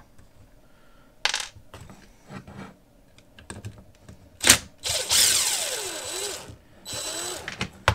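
Cordless drill-driver unscrewing a screw from a pocket bike's handlebar control clamp in short bursts: a brief whirr about a second in, a sharp click, then a longer run about five seconds in that winds down in pitch, and another short run near the end.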